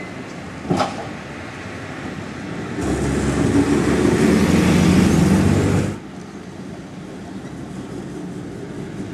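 Vintage tram running past close by on street track. There is a sharp click about a second in, then a loud rushing noise with a low rumble for about three seconds as the car passes, which cuts off suddenly.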